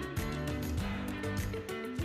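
Background music with a steady beat: pitched notes over a regular rhythm.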